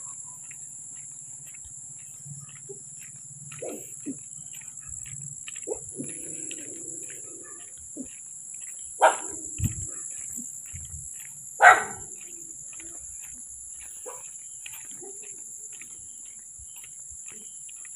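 A dog barks twice, about nine and twelve seconds in, each a short sharp bark, over a steady chorus of night insects.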